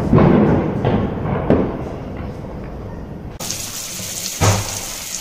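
A low rushing noise with a few thuds for the first three seconds or so. Then, about three and a half seconds in, hot oil sizzling steadily as a puri deep-fries in a kadai.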